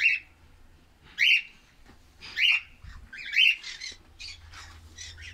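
Caged pet parrots making short, shrill calls, repeated about once a second.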